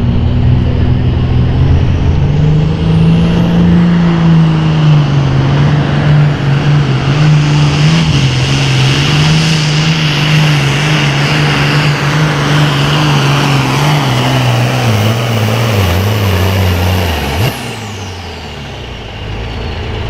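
Super farm pulling tractor's turbocharged diesel engine at full throttle under heavy load during a pull. The engine note climbs over the first few seconds, holds high and steady, then drops sharply about seventeen seconds in as the pull ends.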